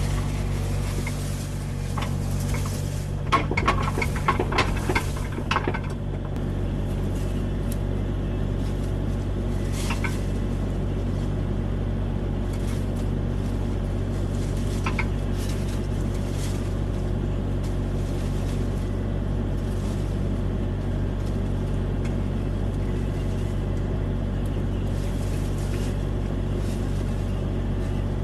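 Kubota mini excavator's diesel engine running steadily, with a flurry of clanks and knocks over the first several seconds and two single knocks later.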